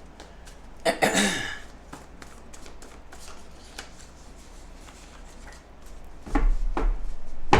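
A deck of oracle cards being shuffled and handled: a run of light clicks, with louder rustling about a second in and again near the end.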